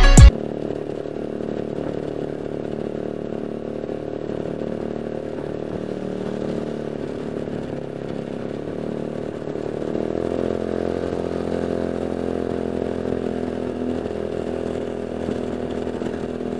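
Motorcycle engine running steadily at cruising speed, picked up by the microphone inside the helmet, with little wind noise. About ten seconds in, the engine note rises slightly and gets a little louder.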